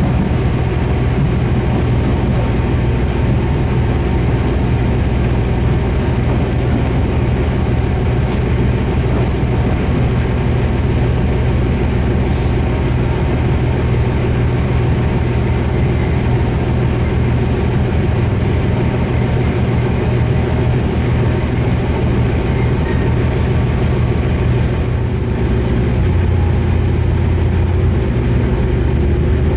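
Diesel railcar under way: a steady low engine drone over the running rumble of the train. The engine note changes near the end.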